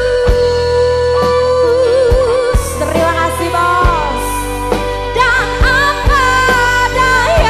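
Live dangdut band music: a sustained melody line with vibrato over a steady bass, with drum hits at uneven intervals.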